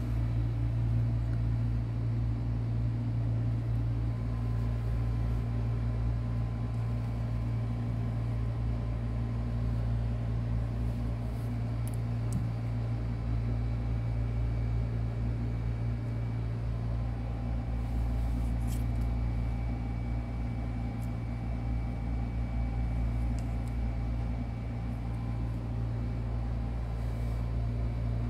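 Steady low mechanical hum, with a few faint clicks about twelve and eighteen seconds in.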